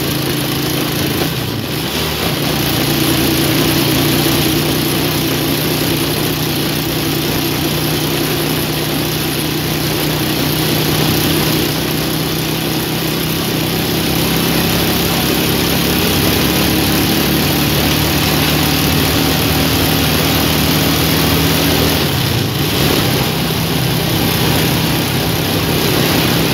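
Motorcycle engine running at a steady cruise with heavy wind noise over the microphone; the engine note shifts about two seconds in and again near the end.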